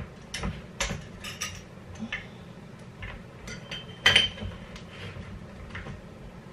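Sharp clinks and taps of a glass swing-top jar and a metal measuring cup being handled as the jar's hinged glass lid is opened, a handful of separate knocks with the loudest about four seconds in.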